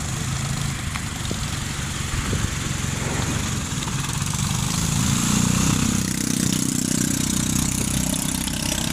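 Isuzu mini dump truck's 4HF1 four-cylinder diesel engine running at low speed as the truck creeps forward, the engine note rising briefly about five seconds in.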